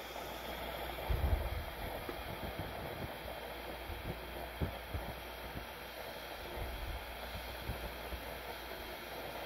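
Electric pressure cooker coming up to pressure, steam hissing steadily out around the little valve button on the lid, the normal venting before the seal takes and pressure builds. A soft low bump about a second in.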